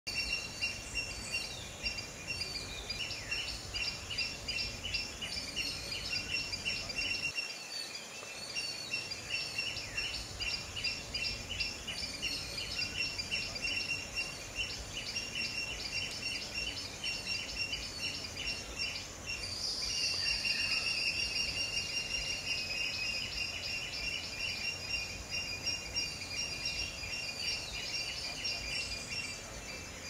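Birds chirping in rapid, repeated notes over a steady high-pitched insect drone, the chirping growing louder about two-thirds of the way through.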